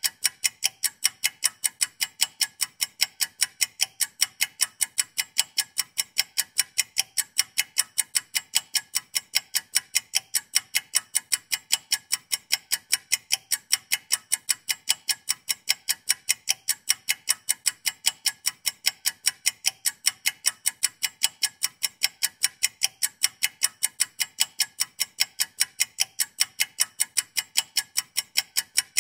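Clock-ticking sound effect: a fast, even ticking that keeps on steadily, the timer of a countdown.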